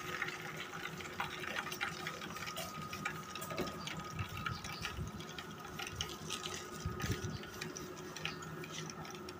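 Chicken frying in a pan of hot oil, sizzling with many small crackles and pops. A steady electric hum runs underneath.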